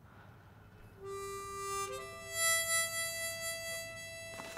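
Soundtrack music: a harmonica plays two long held notes, the second one higher, starting about a second in.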